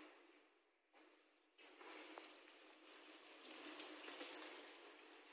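Flour-and-egg-coated chicken deep-frying in hot sunflower oil: a faint, steady sizzle with small crackles, setting in about a second and a half in.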